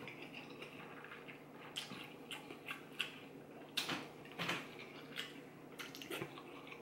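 Quiet eating at the table: soft mouth sounds of eating noodles, with scattered light clicks of wooden chopsticks against the bowls, some of them about halfway through as the chopsticks dip into a small glass sauce bowl.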